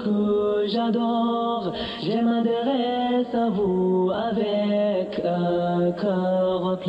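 Background music: a devotional nasheed, with voices singing long held notes.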